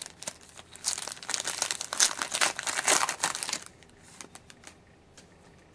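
Foil wrapper of a 2011-12 Titanium hockey card pack being torn open and crinkled by hand: a dense crackling rustle that stops about two-thirds of the way through, followed by a few faint ticks.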